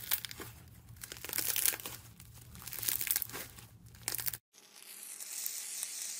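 Hand squeezing and kneading a fluffy, textured slime, giving a crinkly crackling of many small pops in uneven bursts. It breaks off sharply about four seconds in and is followed by a steady high hiss.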